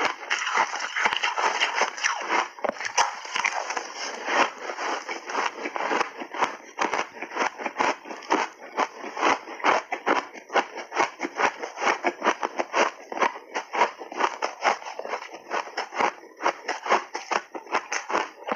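Refrozen shaved ice crunching as it is bitten and chewed in big bites: a dense run of sharp cracks, several a second.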